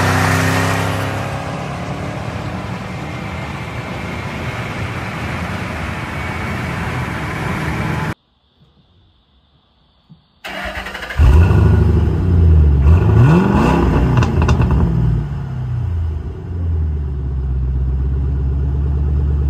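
2009 Mustang GT's 4.6 L three-valve V8 heard through a Pypes Violator axle-back exhaust. First the car drives by and fades into road noise, then comes a short silence. About eleven seconds in the engine starts, is revved several times, and settles into a steady idle.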